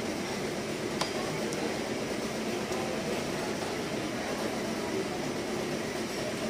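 Steady mechanical whir and hiss of room background noise, with one light click about a second in.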